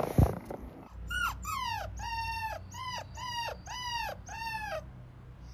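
A puppy whining in a series of about eight short, high calls, roughly two a second, each dropping in pitch at its end. A brief thump and rustle comes at the very start.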